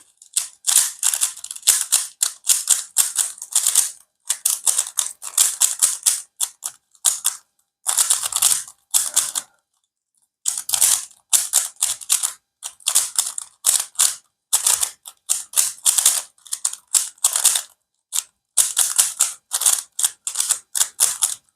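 Plastic Rubik's cube being turned fast in a speedsolve: rapid runs of clicking and clacking as the layers snap round, broken by a few short pauses.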